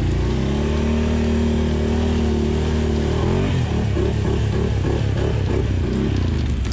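ATV engine running at a steady pitch, then wavering quickly up and down, rising and falling about three times a second, as the quad drives through mud and water on a flooded trail.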